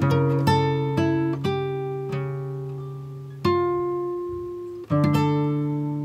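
Background music of plucked acoustic guitar: chords and single notes struck every half second to second and a half, each left to ring out and fade.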